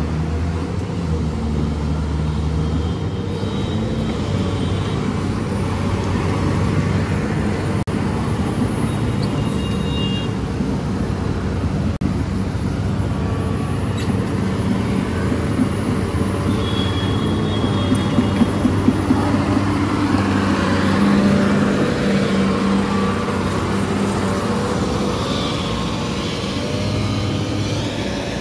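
SANY SY240 crawler excavator's diesel engine running steadily under load while the machine moves and swings, with metallic rattling and a few sharp clanks about two-thirds of the way through.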